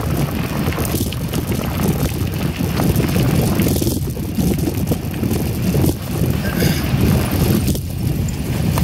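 Mountain bike rolling over a packed gravel trail: steady tyre rumble with small rattles and knocks from the bike, and wind buffeting the microphone.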